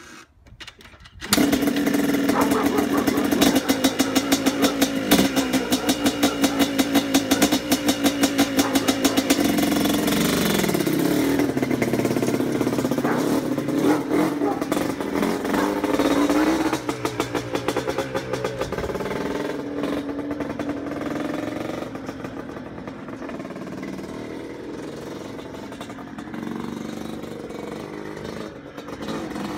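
1991 Yamaha Blaster's single-cylinder two-stroke engine on a Toomey exhaust pipe, kick-started cold. It catches about a second in and runs with a fast pulsing beat, revved a few times. It then pulls away and grows fainter as the quad rides off down the alley.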